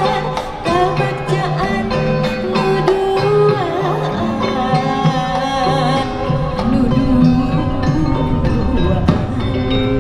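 Sundanese gamelan degung ensemble playing: ringing struck bronze tones and repeated percussion strokes under a wavering, ornamented melody line.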